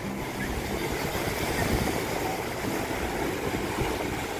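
Sea surf on a sandy beach: a steady rush of waves breaking and washing up the shore.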